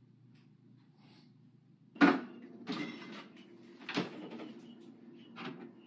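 Kitchen cupboard and refrigerator doors being opened and shut: a sharp knock about two seconds in, then a few softer clunks, after near silence at the start.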